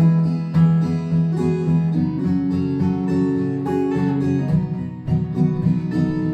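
Acoustic guitar playing a folk accompaniment, the chord changing about two seconds in.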